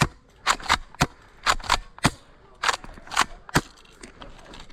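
Airsoft gun firing single shots in quick succession, about ten sharp cracks in under four seconds at an uneven pace.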